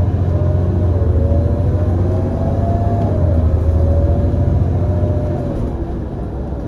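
Irisbus Citelis 18 GNC bus's Iveco Cursor 8 CNG engine pulling under load with a deep rumble, plus a whine that climbs and then drops back twice, in the way of upshifts in its ZF Ecomat automatic. The sound eases off near the end.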